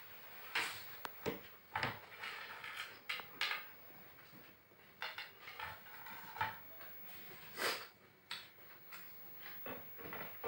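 Irregular clinks and knocks of dishes and a serving spoon, ceramic plates and a steel pot and bowl, as food is served and picked up by hand for eating, with a few louder knocks among lighter taps.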